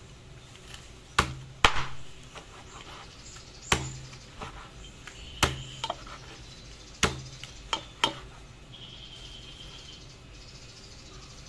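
About seven sharp, irregularly spaced knocks of a hard kitchen utensil, some with a dull thud beneath, the loudest two coming a second or two in.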